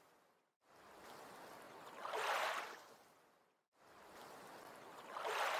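Soft rushing noise, like water or surf, swelling and fading twice in surges about three seconds long, each broken off by a short moment of silence.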